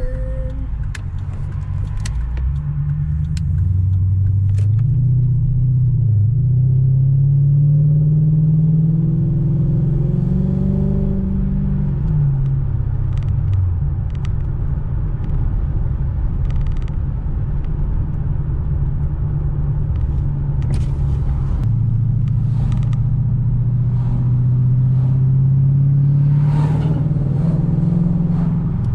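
Exhaust note of a 2002 Infiniti Q45's 4.5-litre V8, heard from inside the cabin with the rear windows cracked, running through newly fitted Nissan Titan JBA shorty headers with no exhaust leak. The engine pulls up in pitch twice as the car accelerates, dropping back in between. A few light clicks sound in the first few seconds.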